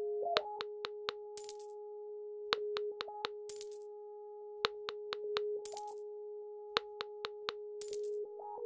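Synthetic interface sound effects: a steady electronic tone under repeated groups of sharp clicks. Four short, bright coin-like jingles come about two seconds apart.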